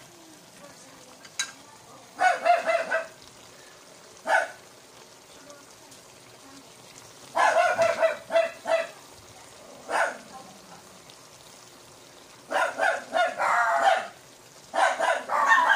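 A dog barking in bursts of several quick barks, with single barks about four and ten seconds in. A faint simmering sizzle from the pan runs underneath.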